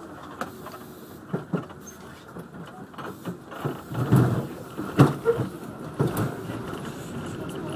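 Paris Métro MF-01 train on steel wheels running along curved elevated track, heard from inside the front of the train. Steady running noise carries a string of irregular knocks and clatters from the wheels on the rails, busiest and loudest about four to five seconds in.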